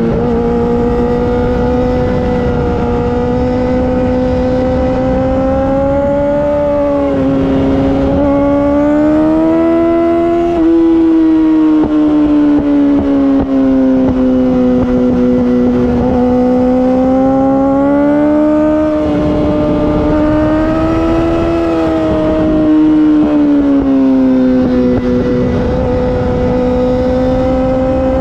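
2019 Yamaha R6's 599 cc inline-four with an Akrapovic Evolution Racing exhaust, running at high revs under riding load, its pitch rising and falling slowly with the throttle and dropping sharply a couple of times as it shifts gear, over a steady rush of wind.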